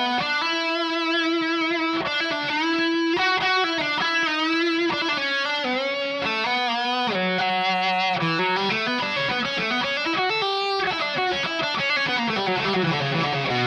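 Donner DST-152B electric guitar (an S-style with a screw-in tremolo arm) playing a slow melodic lead line of sustained single notes. Light vibrato from the tremolo arm makes the pitch waver, with a few deeper dips and swoops in the second half.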